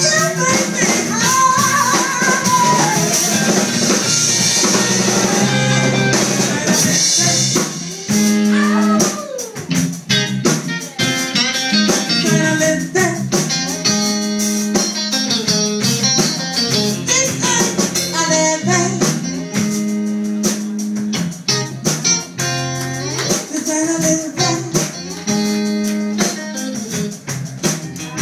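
A live band plays amplified electric guitar over a drum kit, with singing in the first several seconds and a stepped low riff that comes back every few seconds.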